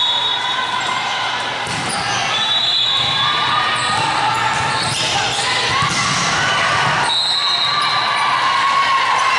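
Volleyball being played in a large gym: the ball being hit and bouncing, over a constant echoing din of players' and spectators' voices.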